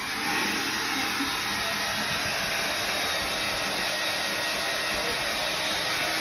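Hand-held hair dryer blowing steadily, with a thin high whine running through its rush of air; it comes up at the very start.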